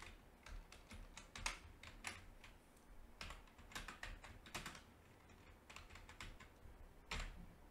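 Faint typing on a computer keyboard: a run of separate keystrokes, uneven and a few a second, with one louder key press near the end.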